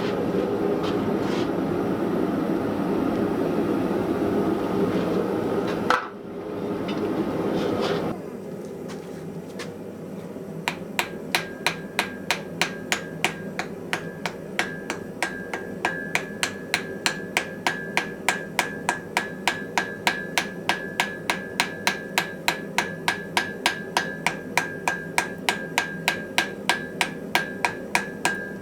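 A steady rushing noise for about the first eight seconds, then regular hammer blows on an anvil, about three a second, each leaving a steady ringing note.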